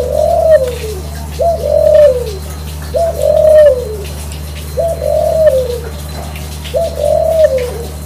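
Caged Barbary dove (ringneck dove) cooing: five repeated two-part coos about a second and a half apart, each a short note followed by a longer rolling note that falls away at the end, over a steady low hum.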